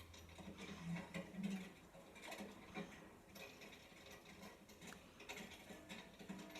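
Faint animated-film sound effects: scattered clicks, taps and rustles in short clusters.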